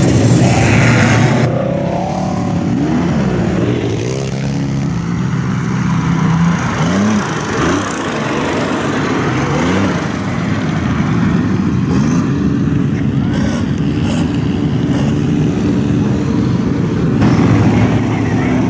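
Engines of lifted mud trucks and off-road vehicles running through a mud pit, with several rising and falling revs.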